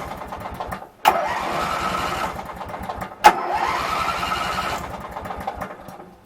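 Craftsman 19.5 twin riding mower's engine being cranked by its electric starter in three bursts, with a sharp click as the starter re-engages at each restart, turning over without catching. The owner suspects a fault in the ignition switch.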